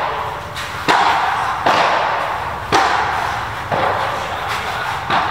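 Padel rally: the ball is struck back and forth by rackets and bounces off the court, a sharp hit about once a second, each echoing under the court's canopy roof.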